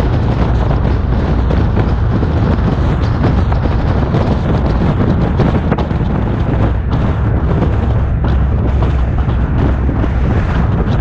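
A car driving along at road speed, heard as a steady, loud low rumble of wind buffeting the microphone, with a crackly texture and vehicle noise underneath.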